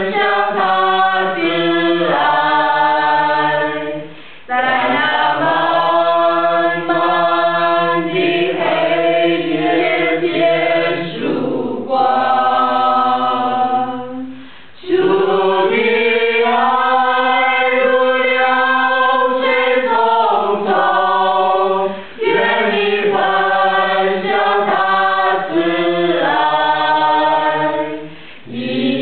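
Choir singing in long sustained phrases, with brief pauses between phrases.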